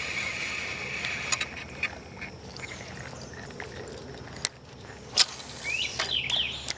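A bird calling: a quick run of rising chirps near the end, over a quiet background broken by a few sharp clicks.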